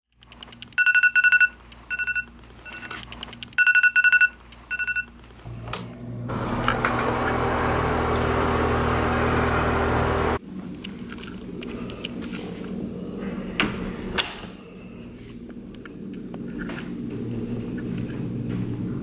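A wake-up alarm beeping in short bursts of a high tone for about five seconds. Then comes a steady rushing noise that cuts off suddenly about ten seconds in, followed by faint clicks and handling sounds.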